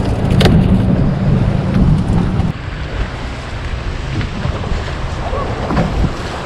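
Wind buffeting the microphone over choppy water on an open boat, with one sharp knock about half a second in. About two and a half seconds in the sound drops suddenly to quieter wind and lapping water.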